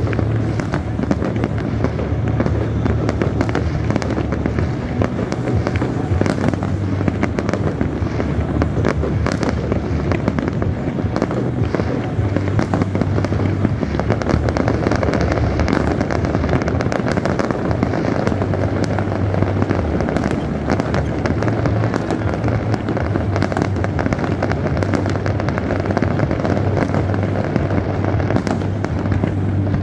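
Fireworks display: a dense, continuous run of bangs and crackling as aerial shells burst one after another, over a low steady hum.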